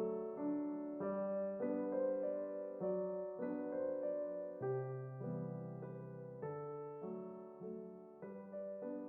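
Background piano music: soft, slow chords struck about once a second, each left to ring and fade.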